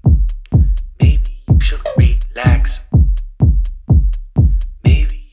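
Electronic music with a deep bass kick that drops in pitch, about two beats a second, hi-hat ticks and short vocal snippets.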